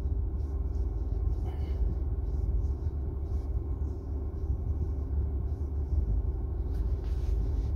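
Steady low rumble with a faint steady hum above it; no speech.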